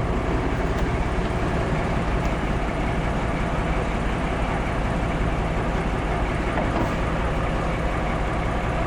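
Steady rumble of a moving vehicle, unchanging throughout.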